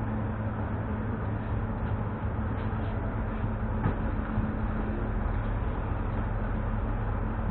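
Steady hum and ventilation noise inside an ES2G "Lastochka" (Siemens Desiro RUS) electric multiple unit, with one faint click about four seconds in.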